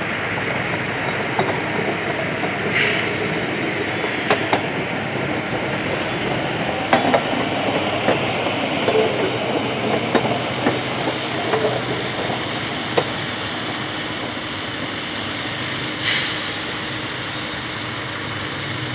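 Hi-rail pickup truck rolling along the rails on its rail guide wheels, with steady running noise and a run of clicks and clacks over the track in the middle. Two short hisses, about three seconds in and near the end.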